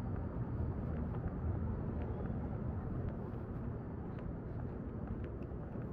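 Outdoor ambience: a steady low rumble, like distant traffic or wind on the microphone, with faint short ticks now and then.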